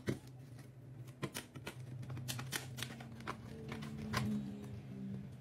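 Kitchen knife cutting around the metal bottom of a Pringles can: irregular small clicks, taps and scrapes, with a faint steady hum underneath.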